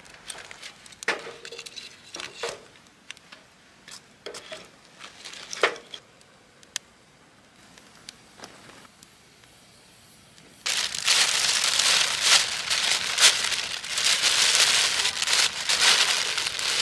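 Split firewood knocking and clattering as pieces are set into a metal fire pit, with scattered sharp clicks. About ten seconds in, a loud, dense crinkling starts suddenly and takes over: a bag being crumpled and folded by hand.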